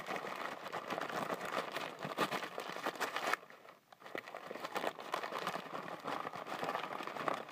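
Newspaper packing being unwrapped and crumpled by hand, a continuous crinkling that pauses briefly a little past the middle.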